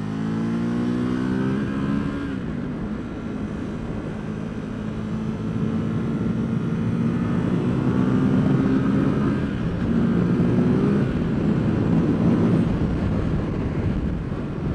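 2017 Ducati SuperSport's 937 cc L-twin engine pulling hard under acceleration. Its note rises in pitch for about two seconds and drops sharply as it shifts up a gear, then climbs again, with another drop about ten seconds in.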